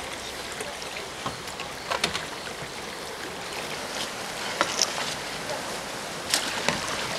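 Kayak paddling on river water: a steady wash of water, broken by a few sharp splashes and knocks of paddles and hulls.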